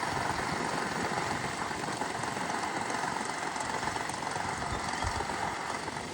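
New Holland 3630 tractor's three-cylinder diesel engine running steadily through a newly fitted silencer, getting slightly quieter near the end.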